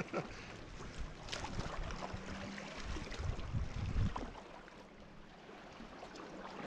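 Sea water splashing and gurgling around a kayak, with small drips and splashes and some heavier low sloshing in the middle.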